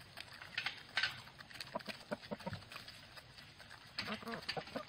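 Hens pecking fast at a bowl of corn and seed mix with dried soldier fly larvae, many quick taps of beaks on grain and bowl, with a few short clucks in the middle and near the end.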